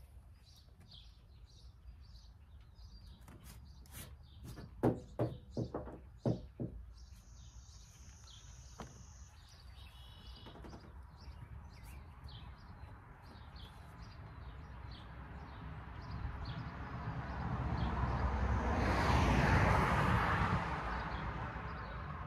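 Birds chirping, with a few sharp knocks about five seconds in, and a rush of noise that swells to its loudest near the end and then eases off.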